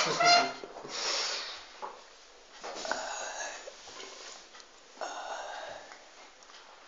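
A man making breathy, strained vocal noises through a mouthful of biscuit in several short bursts, stifled behind his hand.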